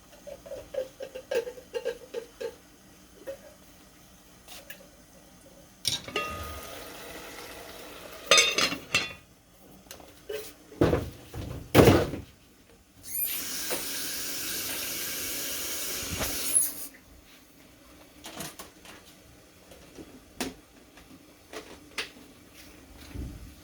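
Kitchen handling sounds: a container and utensils clicking and knocking, with a few heavier thuds, then a tap running for about three and a half seconds.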